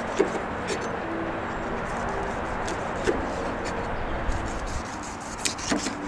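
Large chef's knife chopping through a shark's tail onto a wooden cutting board: several sharp knocks, a cluster of them near the end, over steady outdoor background noise.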